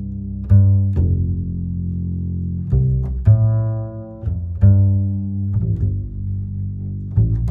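Background music of slow, deep string notes, each starting sharply and ringing on.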